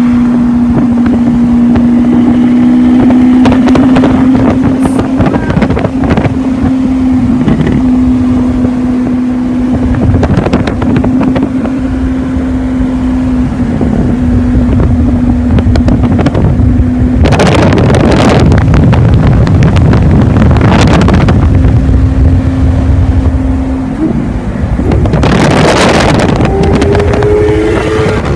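Lamborghini Aventador SV's V12 engine cruising at speed with a steady drone, then revving hard in three loud bursts in the second half.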